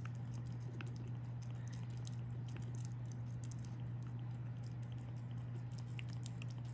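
A steady low hum with faint, scattered small ticks and rustles.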